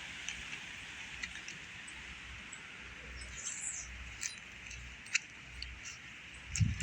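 Outdoor yard ambience: a steady high hiss with scattered small ticks and chirps, and a soft low thump near the end.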